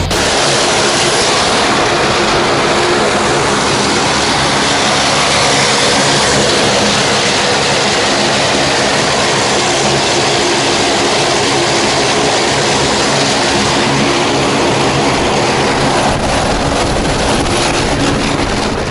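Propeller aircraft engine droning steadily, a loud even rush with a low steady hum.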